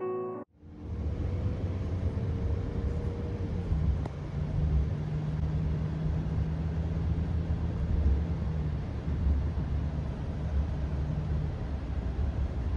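A car driving along a road, heard from inside: a steady low rumble of engine and tyres with a faint steady hum.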